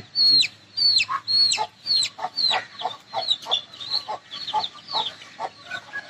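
Aseel chicks peeping loudly: a run of short, high, steeply falling peeps about two a second, growing fainter, with a hen's low clucks between them.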